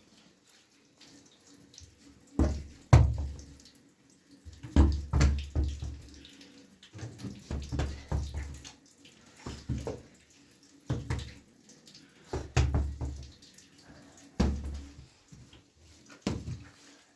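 Water splashing and sloshing in irregular bursts, about a second or so apart, as things are washed by hand in water.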